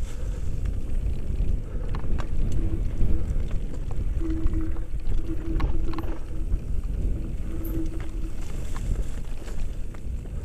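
Mountain bike riding down a rough dirt trail, heard through a helmet-mounted action camera: a steady low rumble of the ride on the microphone, with scattered clicks and knocks from the bike over the ground and an on-and-off hum from about two to eight seconds in.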